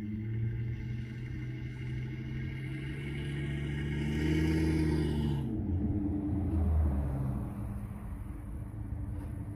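Ford F-350's 6.8-litre V10 gas engine running with its catalytic converters removed, a deep exhaust rumble as the truck accelerates up and passes close by. The engine note rises slightly and is loudest about halfway through, then turns rougher as the truck goes past.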